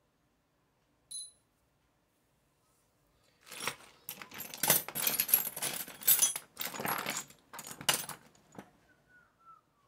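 Small loose metal parts clattering and jingling together for about five seconds, as when rummaging through a tray of small engine parts, starting a little after three seconds in; a single short metallic ting sounds about a second in.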